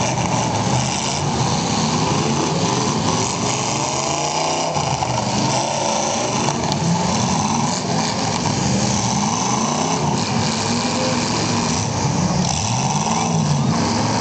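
Engines of several battered demolition derby cars revving up and down, their pitch rising and falling again and again over a steady din.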